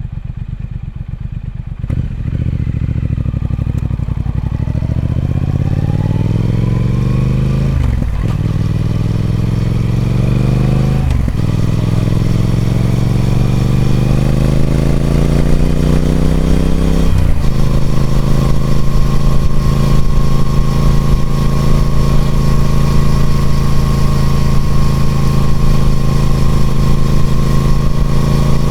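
Triumph Speed Twin 1200's parallel-twin engine through its stock exhaust, running low at first, then pulling away about two seconds in. It revs up through the gears, with three brief dips where it shifts up, then settles to a steady cruise for the second half.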